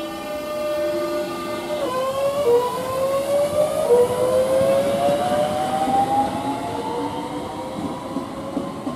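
Southeastern Class 465 Networker electric multiple unit accelerating away, its traction motor whine rising in a series of stepped upward glides over the rumble of the wheels on the rails.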